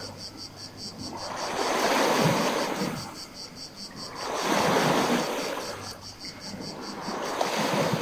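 Small waves washing in over a rocky, pebbly shore, swelling and ebbing about every three seconds. Crickets chirp in a steady, evenly pulsing high trill behind the surf.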